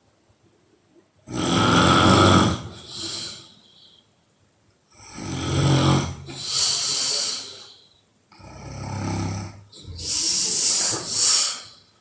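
A woman snoring loudly in slow, regular breaths, each a low rattling snore with a breathy hiss, with quiet pauses between them.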